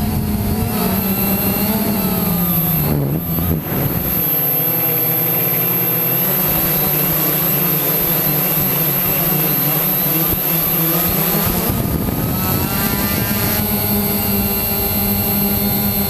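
Quanum Nova quadcopter's electric motors and propellers whining in flight, their pitch rising and falling with the throttle. The pitch falls and briefly drops about three seconds in, then climbs again.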